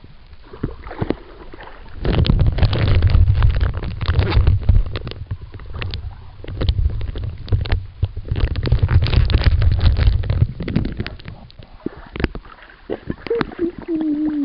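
Water splashing and sloshing against a waterproof camera as the swimmer moves through the water, heard as a loud low rumble full of clicks and gurgles in two spells, a few seconds in and again past the middle.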